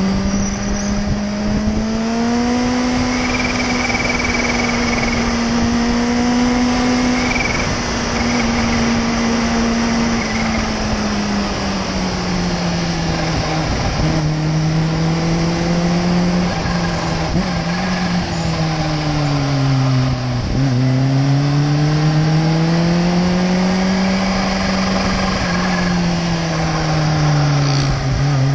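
Kawasaki sport bike engine running under way, heard from on the bike. Its pitch climbs and falls with the throttle, drops sharply about 14 and 20 seconds in, then rises again. A steady rush of air and road noise runs underneath.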